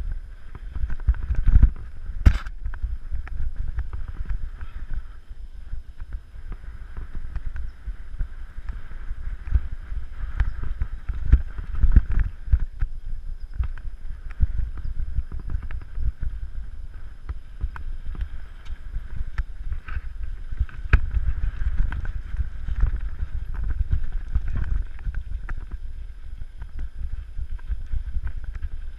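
Mountain bike rattling along a rough dirt trail, with many sharp knocks from bumps and the loudest about two seconds in. Wind rumbles steadily on the microphone throughout.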